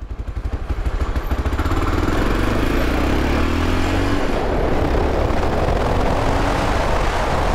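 Motorcycle engine pulling away from low revs and accelerating, its pitch rising twice with a gear change in between about four seconds in. The chain and valve train sound normal.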